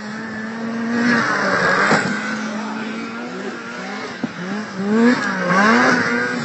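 Snowmobile engine running hard as a sled races past, loudest about a second in and again near the end, where the engine note rises and falls several times in quick succession.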